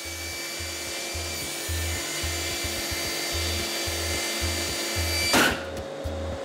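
Festool TKS 80 table saw running with a steady whine as a hot dog is fed into the blade. About five seconds in, the SawStop AIM brake fires with one sharp crack, the whine cuts off, and a lower hum slowly falls in pitch as the motor runs down. A music beat pulses underneath.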